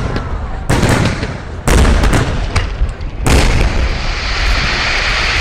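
Fireworks going off: a series of loud booms from shells bursting, about a second apart, then a steady fizzing hiss during the last part.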